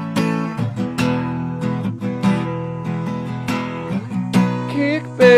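Background music: the instrumental opening of a song, with a strummed acoustic guitar keeping a steady rhythm and a voice starting to come in right at the end.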